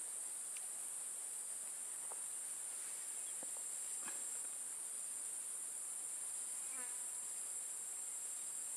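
Steady high-pitched insect chorus, a continuous drone with no break, with a few faint ticks and a brief faint trill late on.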